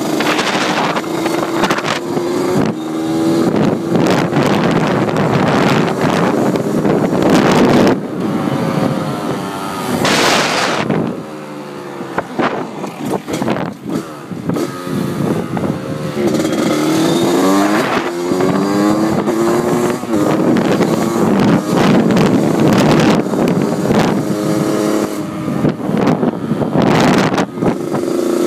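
Dirt bike engine running and revving while riding, its pitch climbing and dropping back again and again as the throttle opens and the gears change. Heavy wind buffeting on the moving phone's microphone sits over it.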